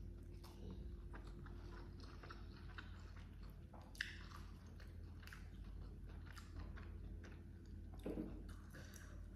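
Close-miked mouth chewing of rice and baby squid, with small wet clicks and smacks and fingers picking through the food; one sharper click about four seconds in.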